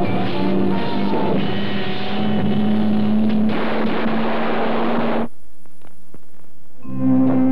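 Film trailer soundtrack: music mixed with the noise of a car, cutting off abruptly about five seconds in. A new held orchestral chord begins near the end.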